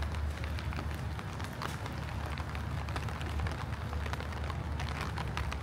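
Rain falling, with many small irregular ticks from drops landing close by over a steady low rumble.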